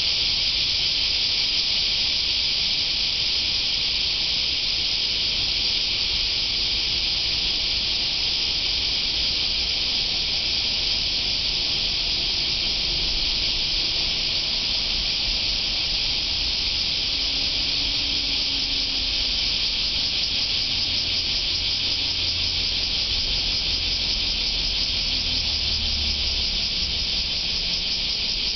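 A dense chorus of cicadas singing in the trees: one steady, high-pitched shrill buzz with no pauses, loud enough to be called noisy. A faint low rumble runs underneath.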